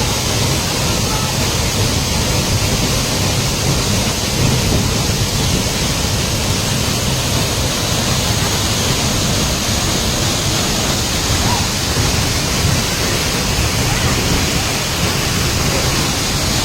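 Waterfall: falling water making a loud, steady, unbroken rushing noise.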